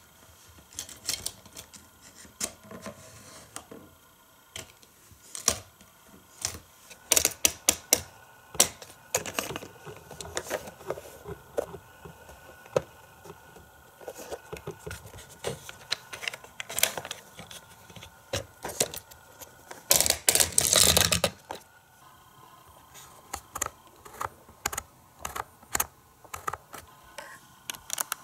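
Plastic parts of a Hot Wheels toy playset and a die-cast toy car clicking and clattering as they are handled, with a denser rattle lasting about a second and a half about two-thirds of the way through.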